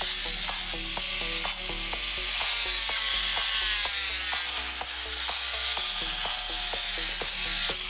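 Rasping strokes of a hand tool working the knife or its handle, in uneven bursts each under a second long, with short pitched notes stepping along behind.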